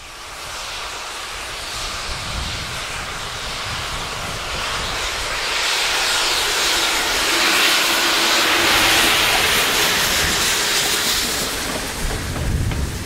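Strasburg Rail Road No. 89, a 2-6-0 steam locomotive, running past with a loud, steady hiss of steam that builds as it approaches, is strongest as it goes by, and eases near the end.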